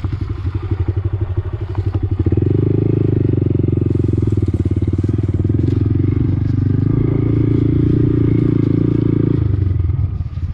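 Honda Grom mini motorcycle's single-cylinder four-stroke engine running at low revs, then opening up about two seconds in and holding steadily higher revs before easing off near the end.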